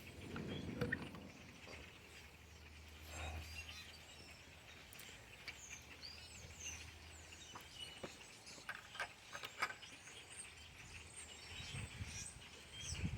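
A large mixed flock of common grackles and red-winged blackbirds calling, a faint chatter of many overlapping chirps, squeaks and clicks. A low hum comes in about three seconds in and fades a few seconds later.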